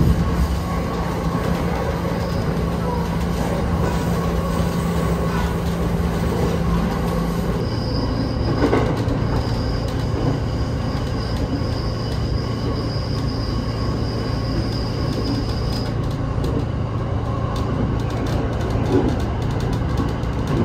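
Train running on rails: a steady rumble with a low hum that drops in pitch about seven or eight seconds in, and a thin high tone that comes in at the same moment and fades out about halfway through.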